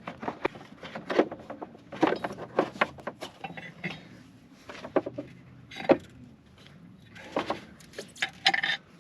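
Irregular metal clinks and knocks of tools and parts being handled while a side-by-side's CVT drive belt is changed, with a brief lull partway through.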